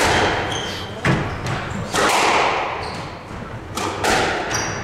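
Squash rally: four sharp smacks of the ball off rackets and walls, roughly a second apart, each ringing on in the enclosed court, with short high squeaks of court shoes on the wooden floor between hits.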